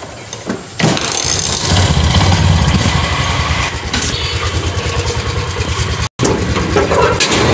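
A scooter's small engine starts with a click about a second in, then runs steadily.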